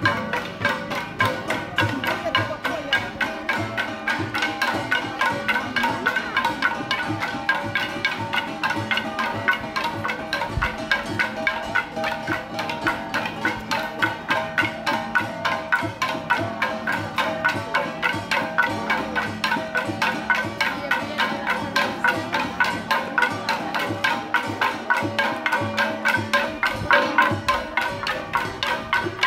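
Percussion music played as a fast, steady beat of about four to five strikes a second, with ringing pitched tones held over it.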